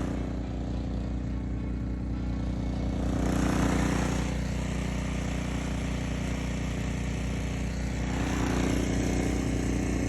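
Gasoline snowblower engine running steadily under load, its drone swelling slightly twice.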